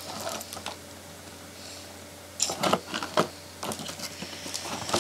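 Doll packaging being handled: a quiet stretch with only a low steady hum, then a cluster of sharp clicks and crinkles about two and a half seconds in, followed by lighter taps.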